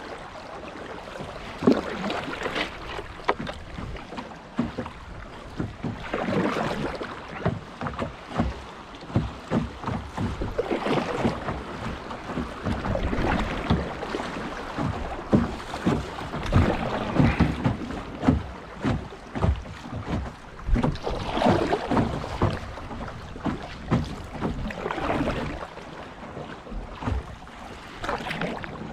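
Canoe being paddled on a river: swells of splashing water every few seconds, with many sharp knocks in between.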